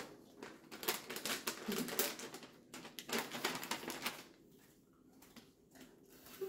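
Gift-wrapping paper crinkling and rustling in quick crackles as a wrapped present is handled, dying down about four seconds in to a few faint clicks.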